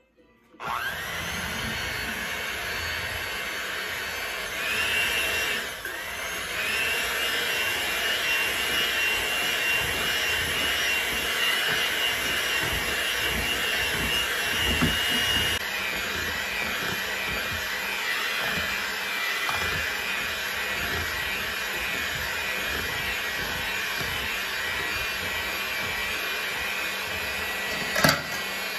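Electric hand mixer switching on and running steadily, its beaters whirring through cake batter as dry ingredients are mixed into wet ones. The motor's whine steps up to a higher speed around five seconds in and drops back around fifteen seconds in. A sharp knock sounds near the end.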